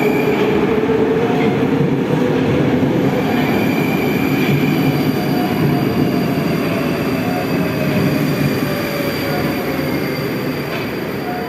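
A Moscow Metro 'Moskva' train running through the station and slowing, a dense steady rumble with faint whining tones that slowly fall in pitch. It grows a little quieter near the end.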